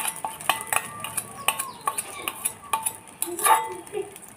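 A utensil clinking against a stainless steel bowl in quick, irregular strokes, each stroke leaving a short metallic ring, as eggs are beaten for an omelette. A heavier knock comes about three and a half seconds in.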